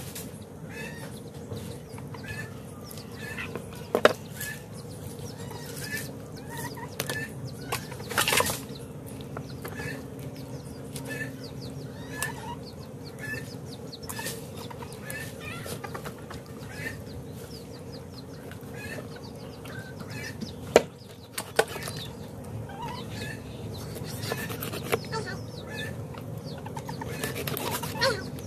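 A knife cutting through the flesh of a giant carp on a chopping block, with a few sharp knocks of the blade striking the block, with small birds chirping over the top.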